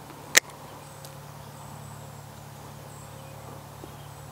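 A single sharp snip of hand pruning shears cutting through wire-cored plant tie, about half a second in, followed by a steady low hum.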